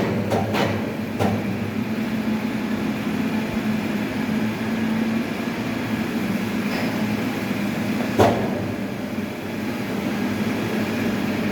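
Heavy sawmill machinery running with a steady low hum, with a few knocks in the first second or so and one loud knock about eight seconds in.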